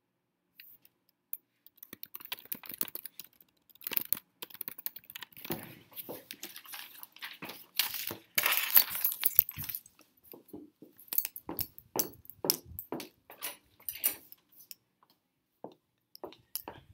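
Laptop keyboard typing, mixed with irregular clicks, taps and rustling from things handled close to the microphone; the loudest rustling comes about eight seconds in.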